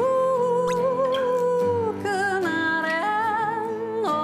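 A woman singing over acoustic guitars: she holds one note with a slight waver for about two seconds, then moves through a few shorter held notes.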